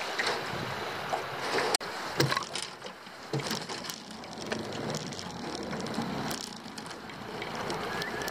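Water lapping against the hull of a small aluminium dinghy, with wind noise and scattered knocks and clicks. The sound drops out for an instant about two seconds in.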